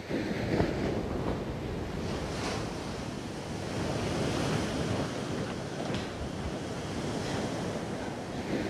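A steady, even rushing noise that starts suddenly at the outset.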